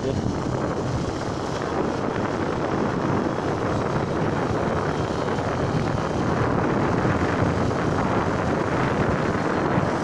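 Yamaha WR125R's single-cylinder four-stroke engine running steadily while the bike is ridden at low speed, with wind buffeting the microphone.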